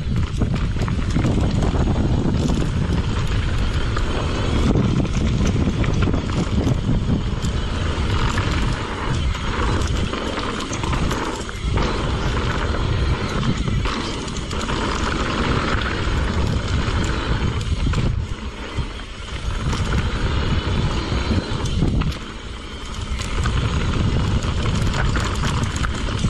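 Mountain bike riding fast down a dirt trail: wind buffeting the microphone over the rumble of the tyres, with many small knocks and rattles from the bike over rough ground.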